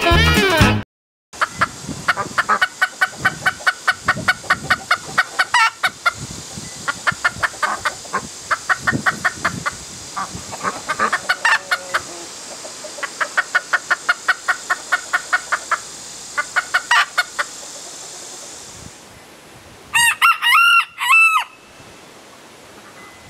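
Chickens clucking in long runs of short, quick clucks, about three or four a second. Near the end a rooster crows once, a loud call in three rising-and-falling parts.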